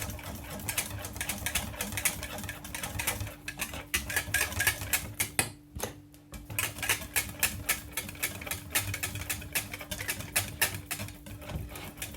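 A utensil stirring a lemon cream in a saucepan over low heat, clicking and scraping rapidly against the pan, with a short pause about halfway through. The cream is being stirred constantly while it cooks and thickens.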